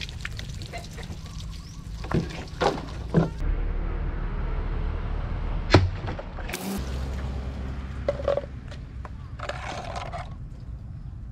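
A twist rebar dagger's blade chopping through water-filled plastic bottles on a wooden bench: a series of sharp hits, the loudest about six seconds in, with water splashing and cut bottle pieces knocking on the boards.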